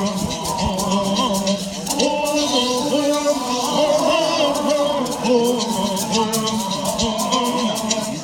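Voices singing a Southern California Native American Bird Song together, over gourd rattles shaken in a steady beat of about four to five strokes a second.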